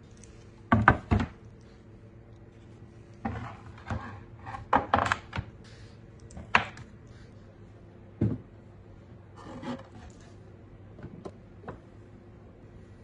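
Melamine-faced shelf panels handled on a workbench, knocking and sliding against each other and the bench top: a run of irregular wooden knocks and clacks, the loudest two about a second in and a busy cluster a few seconds later.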